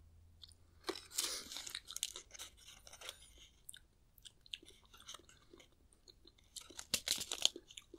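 A person chewing and crunching a small mouthful of dry basil seeds: faint, irregular little crackles, a little louder about a second in and again near the end.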